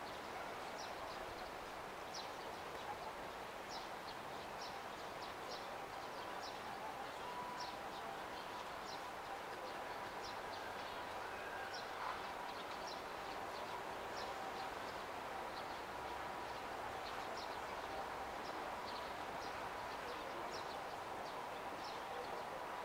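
Outdoor city ambience: a steady hum with two faint steady tones, under short high chirps that repeat irregularly, about two a second.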